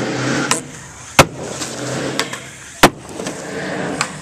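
Skateboard wheels rolling on concrete, broken by two loud, sharp smacks of the board striking about a second and a half apart.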